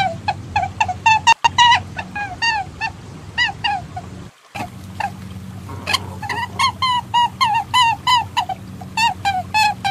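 A rapid series of short, honking bird-like calls, several a second, each bending slightly in pitch, over a steady low hum; the track drops out briefly twice. It is a hunters' lure recording sold as a perentie calling sound, not the voice of the lizard itself.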